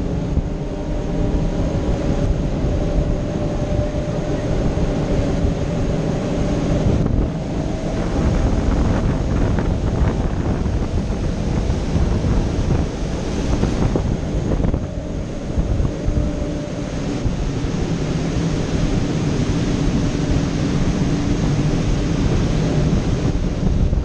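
Wind buffeting the microphone on a moving cable car, with a faint steady hum underneath.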